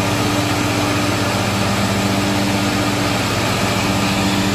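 Riding lawn mower engine running steadily with the cutting blades engaged while the mower backs up. The blades keep spinning in reverse because a safety sensor has been cut out.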